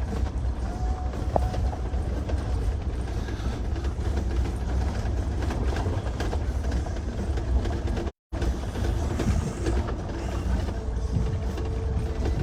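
Steady low rumble and rattle of a vehicle driving, heard from inside the cab. The sound cuts out completely for a moment about eight seconds in.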